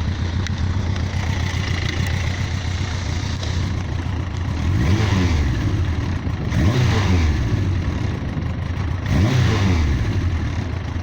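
Yamaha XJ900S Diversion's air-cooled inline-four engine idling steadily, then revved three times, each rev rising and falling back to idle. It runs smoothly without stumbling: the misfire is cured.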